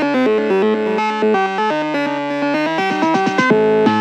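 Background music: an upbeat synthesizer and keyboard tune with a plucked guitar-like part.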